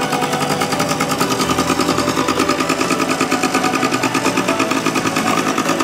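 A 1981 Yamaha PW50's small two-stroke single-cylinder engine running steadily, with a rapid, even pulsing beat.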